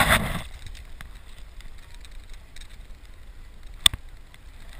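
Loud rush of snow spraying and scraping against the action camera, cutting off about half a second in. After that a faint hiss, with one sharp click near the end.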